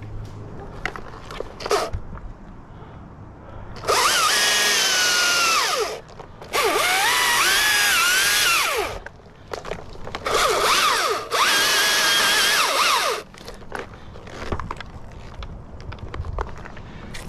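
Husqvarna T540i battery chainsaw cutting dead birch in four bursts, the electric motor's high whine rising and wavering in pitch as it bites into the wood.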